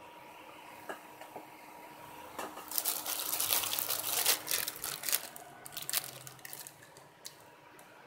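Plastic bag crinkling and rustling as it is picked up and handled, a dense run of crackles for about four seconds starting a couple of seconds in, then a few scattered crinkles.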